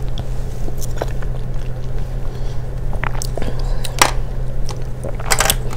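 Close-up chewing of a mouthful of ripe mango, with wet mouth sounds. A few sharp clicks come from a plastic food tray being handled, over a steady low hum.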